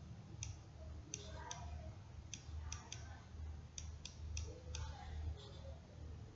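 Computer mouse clicking, about ten sharp single clicks at uneven intervals, as a trading chart is stepped forward bar by bar.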